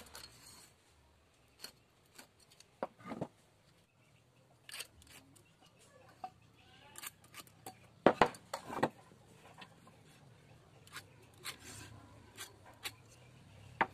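Scattered clicks and taps of a steel try square and metal ruler being set down and moved on wooden boards, with a pencil scratching marking lines; a short clatter of several louder knocks about eight seconds in.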